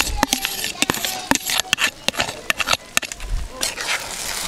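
Metal spoon clinking and scraping against a frying pan as egg and soya chunks are stirred, in quick, irregular clicks.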